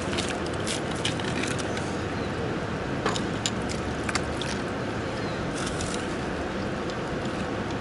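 Light clicks and rattles of a tape measure and metal-framed landing net being handled while a carp is measured, scattered over a steady outdoor rushing hiss.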